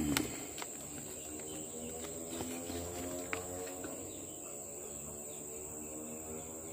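Steady high-pitched cricket trill in the background, with a low hum of several steady tones through the middle and a couple of sharp handling clicks at the start.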